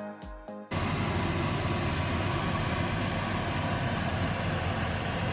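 Background music cuts off less than a second in, giving way to a salmon fillet and spinach sizzling loudly in a cast-iron frying pan: a steady, dense crackle.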